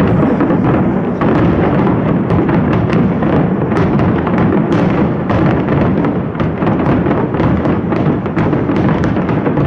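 Aerial fireworks going off in a dense, continuous barrage: many overlapping booms and crackles with no break between them.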